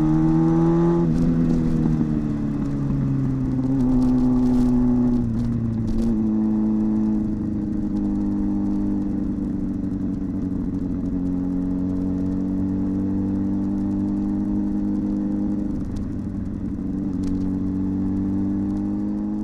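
A 2014 Jeep Cherokee's V6 engine pulling under acceleration. Its note climbs and then falls suddenly as the automatic transmission upshifts, about a second in and again around five to six seconds, then settles into a steady cruise.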